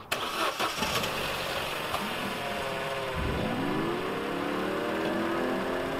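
Vauxhall Corsa's engine starting about three seconds in, its note rising quickly and settling into a steady idle. A few knocks come in the first second, before the start.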